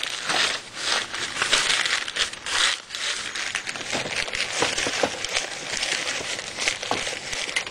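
A sheet of paper being crumpled and rolled by hand and stuffed into a metal charcoal chimney starter, rustling and crinkling irregularly with a few sharper crackles.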